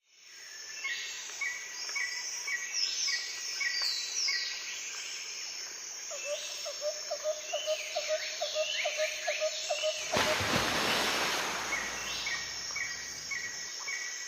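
Birdsong: evenly repeated chirps and short falling whistles, with a run of quick lower notes in the middle and a brief rush of noise about ten seconds in.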